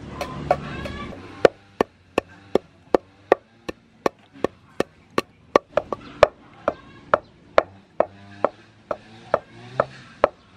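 Wooden pestle pounding black pepper in a large wooden mortar: steady, evenly spaced knocks, about two and a half a second.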